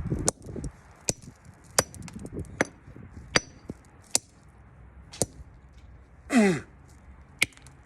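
A plastic bootleg toy being smashed: sharp, separate strikes at a steady pace, roughly one a second. About two-thirds of the way in there is a short sound that falls in pitch.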